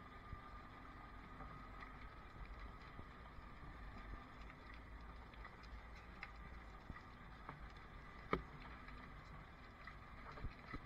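Low steady rumble of a fire truck's engine heard inside the cab as the truck rolls slowly, with faint scattered clicks and one sharper click about eight seconds in.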